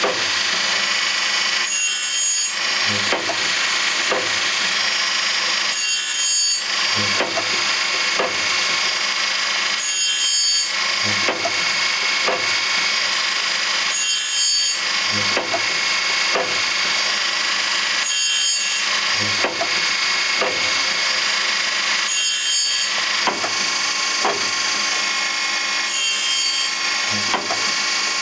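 A Loroch band saw sharpening machine running and grinding a saw blade: a steady grinding hiss and whine, with a cycle that repeats about every four seconds.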